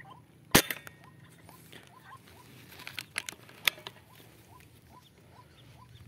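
A sharp shot from a scoped air rifle about half a second in, then another sharp click a little past the middle. Under it a short rising bird call repeats about two to three times a second.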